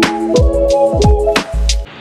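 Upbeat electronic intro music: a steady drum beat with deep, falling kick thumps and sharp hits under a short repeated melody. It cuts off suddenly near the end.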